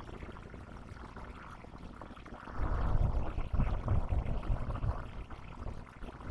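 Faint steady background hiss, then from about two and a half seconds in a couple of seconds of dull, irregular low thumps and rumbling: handling knocks as glitter is shaken from a small bottle over a glued plastic container.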